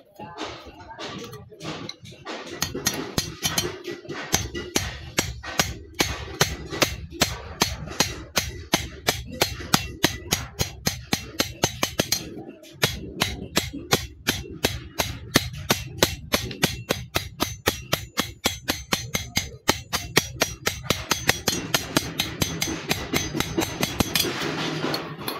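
Hammer striking metal over and over, about three blows a second, with a short break about halfway through.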